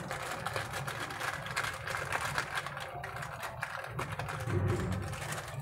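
Foil spice packet crinkling and rustling in quick irregular bursts as biryani masala powder is shaken out of it, over a steady low hum.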